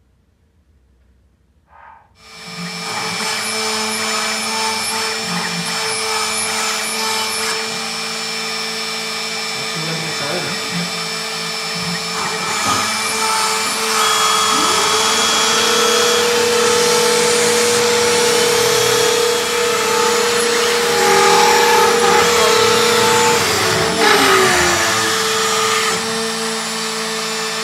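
Spindle of a Stepcraft 640 CNC router running steadily as its cutter mills through plywood, starting about two seconds in, with its tone shifting in pitch now and then as the machine moves. The feed is set far too fast.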